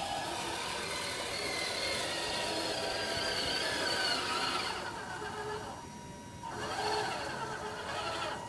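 Tamiya Hilux High-Lift RC truck's electric motor and gearbox whining, the pitch rising and falling with the throttle as it crawls. The whine drops away briefly about six seconds in, then picks up again.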